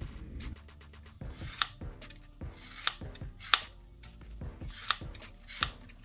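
One Shear Mini compact medical shears cutting through seatbelt webbing in a series of short snips, about five of them sharp and loud.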